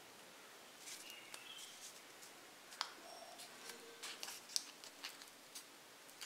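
Pleated paper sweet liner crinkling and crackling as fingers turn it and fold back its edges, in faint, scattered crackles that come thickest in the second half.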